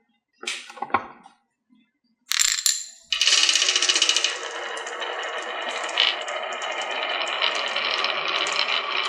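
Marbles on a wooden HABA marble run: a few separate clicks, then from about three seconds in a dense, continuous clatter of many marbles rolling and knocking down the wooden track.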